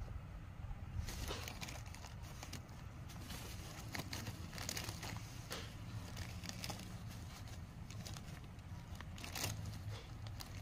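Tissue paper rustling and crinkling in the hands in irregular bursts starting about a second in, over a low steady hum.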